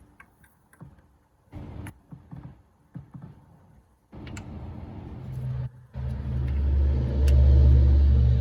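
A few faint clicks and rustles of parts being handled while the timing chain tensioner is fitted, then about six seconds in a loud, steady low rumble with a machine-like hum starts suddenly and keeps going.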